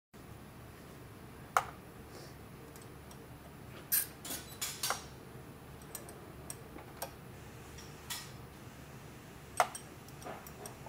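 Metal hand tools clinking and clicking against the Volvo D13 engine's turbocharger mounting as a wrench works its bolts: scattered sharp clinks, with a cluster of several about four seconds in and single loud ones about a second and a half in and near the end.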